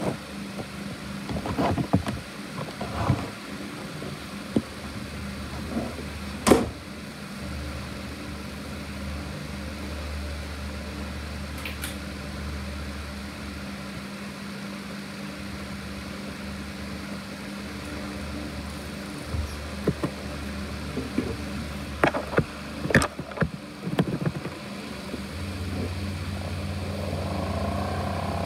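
ASUS X543UA laptop's cooling fan running with a steady drone, the noise the owner likens to a jet engine. Scattered clicks and knocks sound over it, and a higher whine joins near the end.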